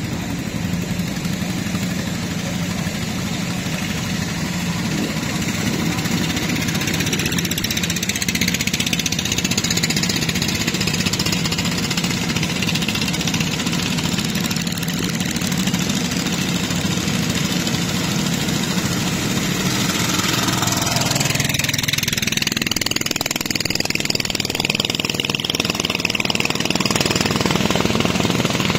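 A small riverboat's engine runs steadily under the rush of water along the hull. About twenty seconds in, a passing boat's engine swells and fades, rising then falling in pitch.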